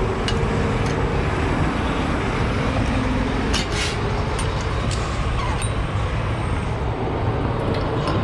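Steady low rumble of an idling vehicle engine, with a few short sharp clicks and rattles over it.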